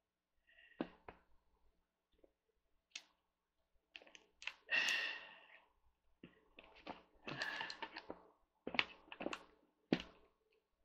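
Screwdriver bits clicking and rattling in a small plastic bit case as they are picked through and pulled out by hand. The clicks and knocks are irregular, with a couple of brief clattering shuffles.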